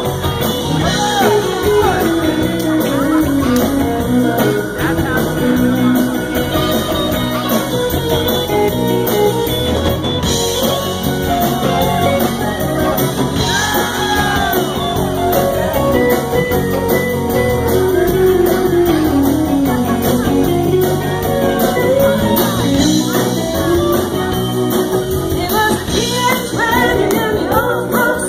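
Live rock band playing, with a sung melody over guitar and keyboard.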